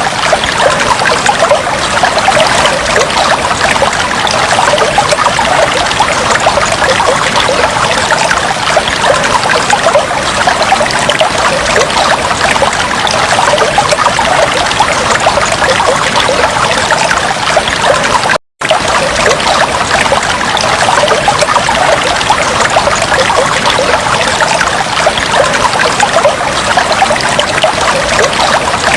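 Fish tank water trickling and bubbling steadily, a dense stream of small splashes, with a very brief cut-out about two-thirds of the way through.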